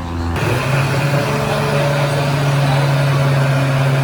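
Steady low mechanical hum over a constant noise bed, starting abruptly about a third of a second in.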